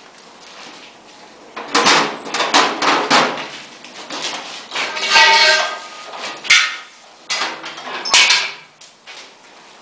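Hammer knocking on the steel base and frame of an automatic wall-plastering machine being assembled: a series of sharp metallic knocks, with one louder ringing clang about five seconds in.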